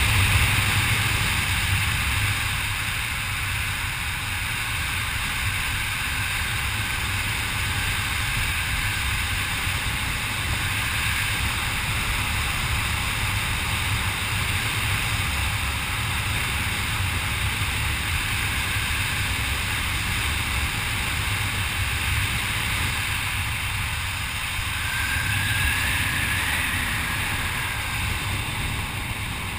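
Wind rushing over a skydiver's head-mounted camera during flight under an open parachute canopy: a steady low rumble with hiss.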